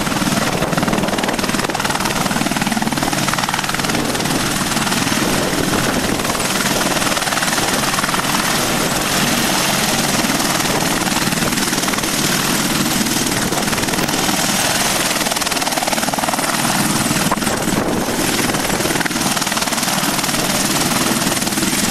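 AgustaWestland Apache AH Mk.1 attack helicopter on the ground with its rotors turning, its twin Rolls-Royce Turbomeca RTM322 turboshaft engines and main rotor running steadily at close range.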